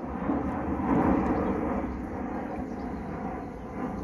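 Airplane flying overhead: a steady rushing rumble that swells about a second in and then eases off slightly.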